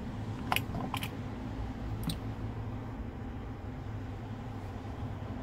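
Three short, sharp clicks, the first about half a second in and the loudest, over a steady low hum.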